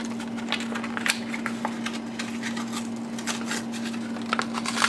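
Plastic blister of a Hot Wheels package crackling and tearing as it is pried open from its cardboard backing card, a quick, irregular run of small clicks and crinkles.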